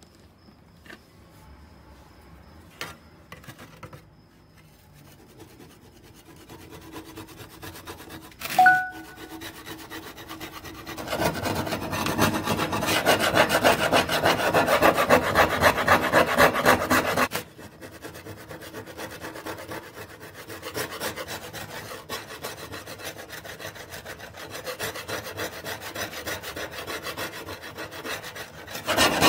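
A single metallic clink, then a steel tool scraping rapidly back and forth along the rusty edge of a saw blade, taking the rust off. The scraping is loudest for several seconds in the middle, stops suddenly, then carries on more softly.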